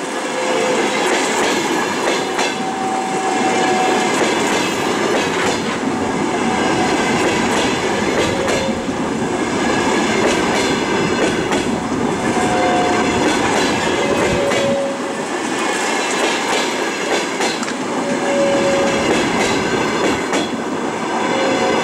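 Passenger coaches of a departing train rolling past close by: steady wheel-and-rail noise with clicks as the wheels cross rail joints, and short squeals from the wheels every few seconds.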